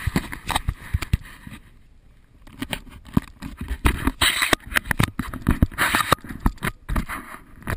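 Close, irregular knocks, taps and scraping from a hand-held action camera being jostled during a climb up a metal stairway, with bursts of rubbing against the microphone.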